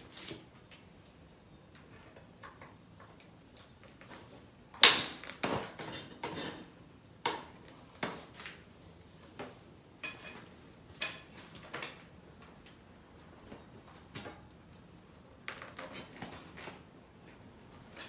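Irregular metallic clicks and knocks of tools and parts being handled while a Shimano Hollowtech crankset and bottom bracket are taken apart, the loudest knock about five seconds in.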